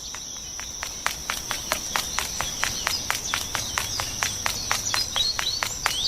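Insects chirping: a steady high-pitched trill with regular pulses about five a second, and a few short chirps near the end.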